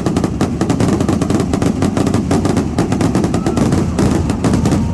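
Fireworks going off in a dense, unbroken barrage of rapid bangs and crackles, the kind heard in a display's finale.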